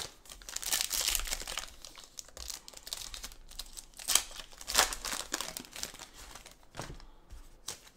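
Foil wrapper of a Panini football trading-card pack crinkling and tearing as hands pull it open. The sound comes as several short crackly bursts, the sharpest about four and five seconds in.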